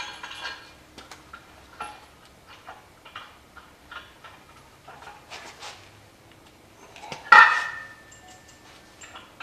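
Scattered light metallic clicks and taps of hand work on an engine hanging from a shop hoist, with one loud metal clank about seven seconds in that rings briefly.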